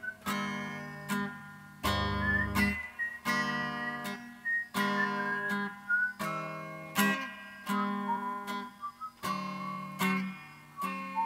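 Background music: acoustic guitar strumming chords in a steady rhythm, with a thin melody line above.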